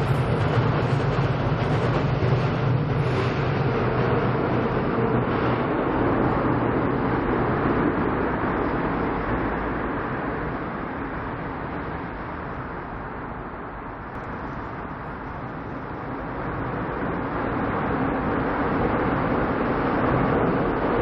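Seoul Subway Line 7 train rumbling across Cheongdam Bridge overhead, with a low hum at first. The rumble fades about two-thirds of the way through, then builds again near the end as another train approaches.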